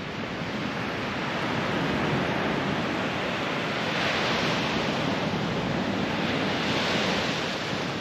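North Sea waves breaking and washing up a beach: a steady rush of surf that swells a little around the middle and again near the end.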